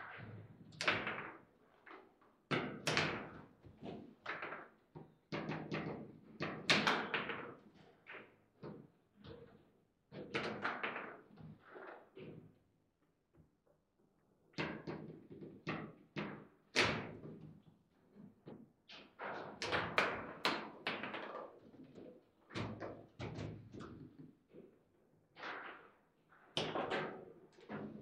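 Table football being played: the hard ball cracking off the plastic players and table walls, and the rods clacking and sliding as they are spun and shifted. The knocks come in quick irregular flurries, with a brief lull near the middle.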